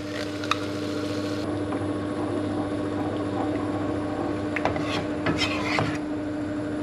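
A metal spoon stirring coconut milk into thick curry sauce in a frying pan, with scraping and a few clinks against the pan, busiest around five seconds in, over a steady hum.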